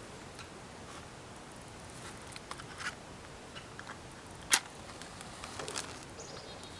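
Smouldering embers under a burning sneaker, with soft hissing and scattered small crackles and pops, and one sharp, loud pop about four and a half seconds in.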